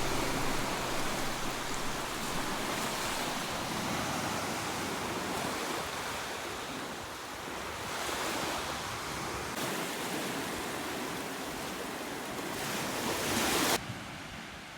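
Sea waves washing onto a beach in a steady hiss that slowly swells and falls, cutting off abruptly near the end to a quieter hiss.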